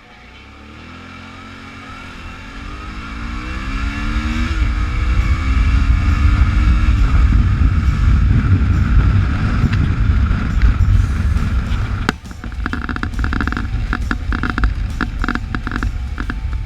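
Suzuki V-Strom 650 V-twin engine pulling away and accelerating, its pitch climbing with a break for a gear change about four and a half seconds in. Heavy low wind rumble on the microphone then builds with speed, with a brief dip and a pulsing sound about twelve seconds in.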